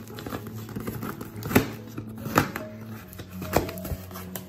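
Cardboard box flap and packing tape being torn and pulled open by hand: a run of small crackles with three sharp, loud rips about one and a half, two and a half and three and a half seconds in. Background music with steady low held notes plays underneath.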